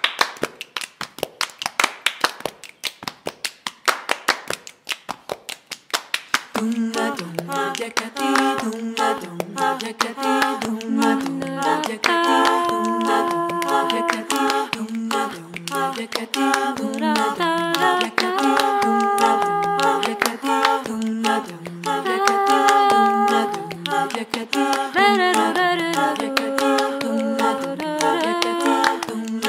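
Hand percussion from the singers, sharp claps in a quick steady rhythm. About six and a half seconds in, women's voices enter in close a cappella harmony over it, with a low voice stepping out a bass line beneath held chords.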